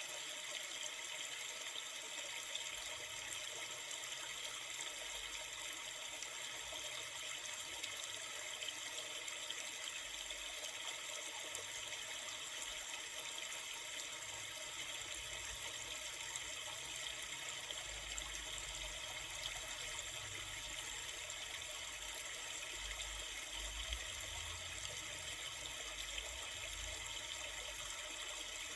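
Steady rushing of a river or stream: continuous flowing water with no breaks, and a faint low rumble coming and going in the second half.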